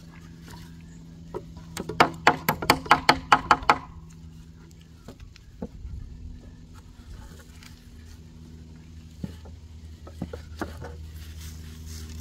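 A rapid run of about ten sharp knocks, about five a second, lasting around two seconds, followed later by a few scattered lighter knocks, over a steady low hum.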